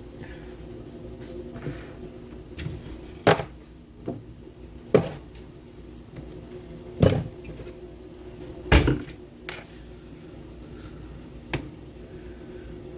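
Kitchen handling noise: about six separate clunks and knocks of things being moved and set down, spaced a second or two apart, over a steady low hum.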